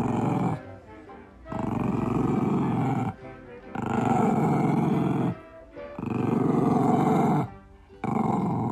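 Kitten growling in a run of rumbling growls, each about a second and a half long, with short pauses for breath between them.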